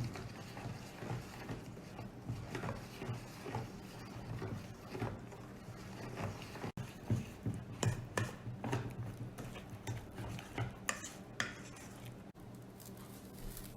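Kitchen utensils tapping and scraping against a bowl in irregular clinks, busiest in the second half, over a low steady hum.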